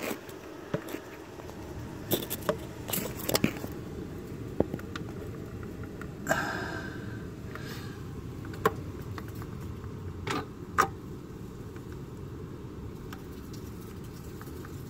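Scattered light clicks and taps, with a brief rustling scrape about six seconds in, over a faint steady background: small handling and contact noises at close range.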